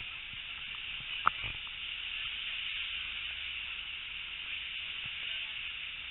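A steam-hauled train heard from a carriage: a steady hiss over a faint low rumble, with one sharp click about a second in.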